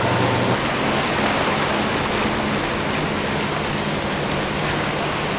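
Steady rush of churning water and boat wake, with a low, steady outboard engine hum underneath.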